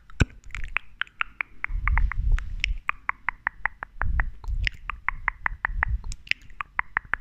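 Close-miked jade facial roller clicking quickly and regularly, several sharp clicks a second. Soft low rumbles of a hand moving past the microphone come and go.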